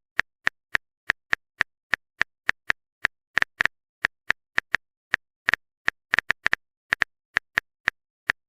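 Keyboard typing sound effect: a run of sharp, unevenly spaced clicks, about four a second.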